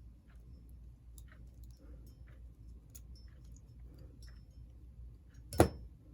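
Scattered faint clicks and handling noises of small parts being worked by hand on a model locomotive, over a low steady hum, with one sharp knock about five and a half seconds in.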